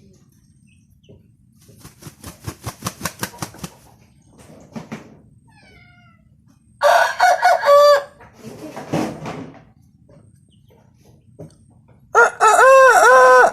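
Six-month-old broodstag, a young rooster, crowing twice, each crow loud and about a second long with a rise-and-fall pitch, the first about seven seconds in and the second near the end. A quick run of short sharp beats comes about two seconds in, before the crows.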